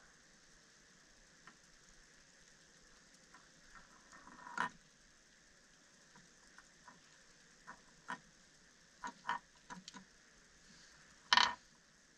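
Small handling noises of hands working lure-tying materials and thread: scattered light clicks, taps and rustles over a faint hiss, with one louder, sharp knock near the end.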